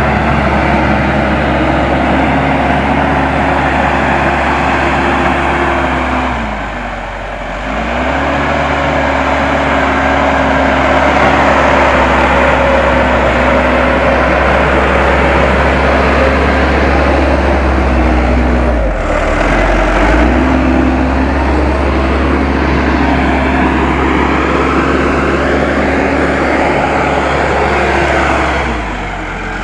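Diesel engine of a Case 580M backhoe loader running at working revs while spreading earth. Its note sags and picks back up about a third of the way in and again past the middle, with a third dip near the end.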